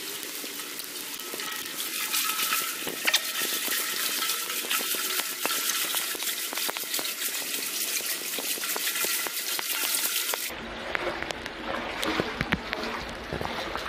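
Water splashing and sloshing as someone wades through deep mud and water in waders: a dense, hissy splashing full of small clicks, which cuts off suddenly about ten seconds in and gives way to quieter splashes.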